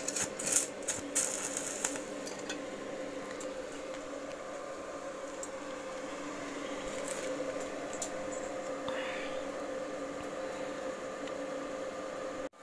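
Small portable stick welder at work on a steel-wire cage: a burst of crackling from the arc in the first two seconds, a few more crackles later, over a steady electrical hum.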